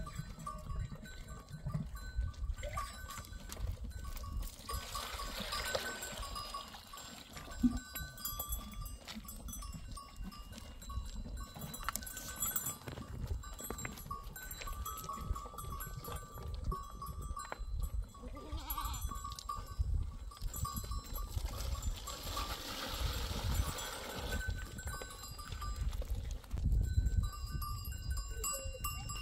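A goat herd crowding and drinking at water basins, with small bells on the animals clinking and ringing on and off throughout.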